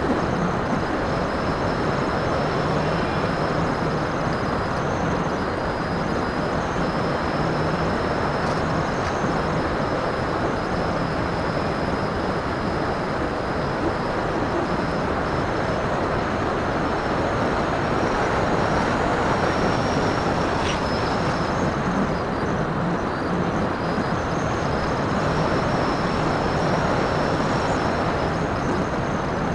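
Phoenix 2000 RC glider in flight heard from its onboard camera: steady rush of air and wind over the microphone, with a thin high whine that drifts in pitch and fades in and out.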